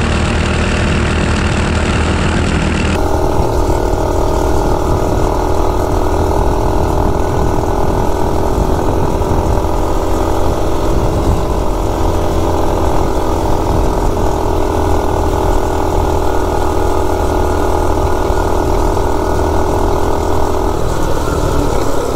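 Mini bike's single-cylinder Predator 212-based engine, governor deleted, held at full throttle on a top-speed run. After about three seconds it runs at a steady pitch with a low rumble underneath, and the note changes near the end.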